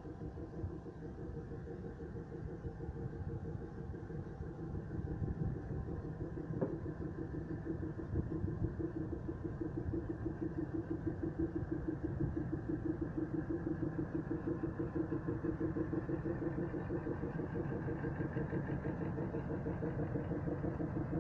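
DEMU passenger train rolling slowly past, its diesel power car engine running with a fast, even pulse that grows louder as the power car draws level. A single sharp click about seven seconds in.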